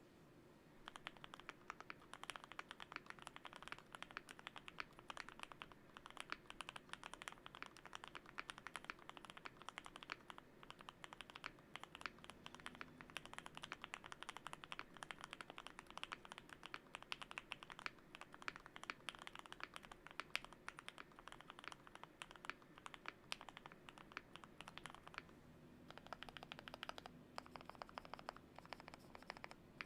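Fast, continuous typing on a Monsgeek M5 mechanical keyboard with lubed Gateron Milky Yellow Pro linear switches and PBT keycaps: a dense run of key clicks that starts about a second in.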